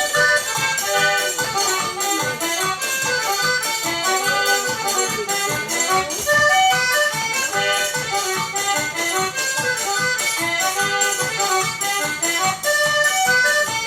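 Forró music: accordion playing a melody over a fast, steady shaker and triangle-like beat.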